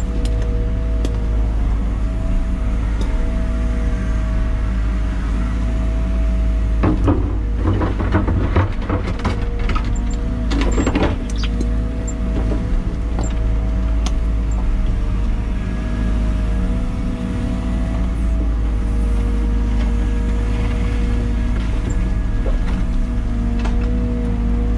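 Liebherr 914 Compact wheeled excavator heard from inside its cab: the diesel engine running with a steady low rumble under a hydraulic whine that wavers as the boom and tiltrotator work. Between about seven and eleven seconds in, a run of clatters and scrapes as the bucket pushes dirt and stones onto the pile.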